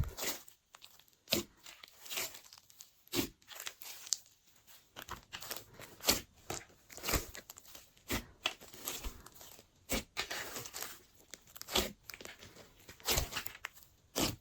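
Glossy slime being stretched and squished by hand: irregular sticky crackles and pops, with a sharp louder snap about once a second.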